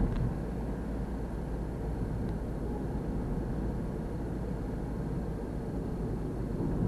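Steady engine and tyre noise of a car driving along a road, heard from inside the cabin.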